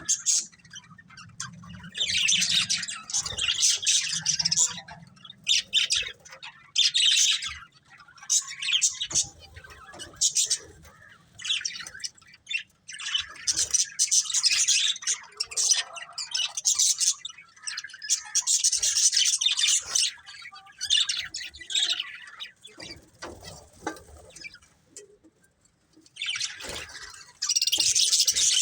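Pet budgerigars chirping and chattering in bouts of a few seconds, with short pauses between.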